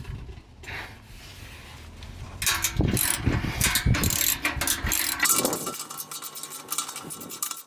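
Hand socket ratchet clicking in quick runs of strokes as it loosens the 15 mm bolt on an exhaust muffler clamp. The clicking starts about two and a half seconds in.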